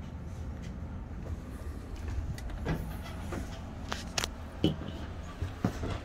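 A few scattered knocks and clicks, the loudest about two-thirds of the way in, as someone climbs the entry steps and steps into a travel trailer, over a steady low rumble.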